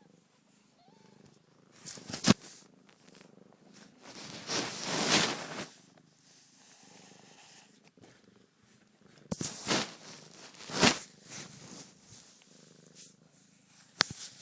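Mother cat purring steadily, with loud rubbing and bumping noises on the phone as she rubs against it: a sharp bump about two seconds in, a longer rub around the fifth second, and more rubs and bumps later on.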